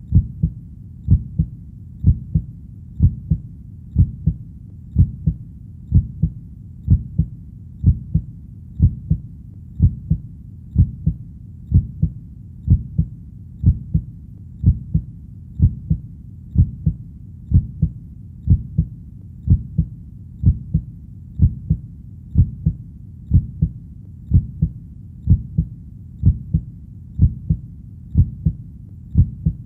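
Heartbeat: a steady, slow lub-dub of paired deep thumps, about one beat a second, with no change in pace.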